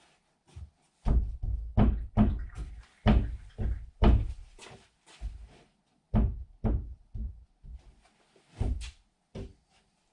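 Hammer driving nails into 2x4 wood framing: a run of solid knocks, about two a second with short pauses.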